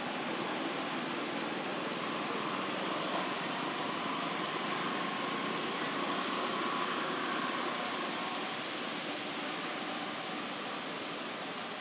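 Steady outdoor rushing noise with no distinct events, and a faint thin tone showing through it in the middle stretch.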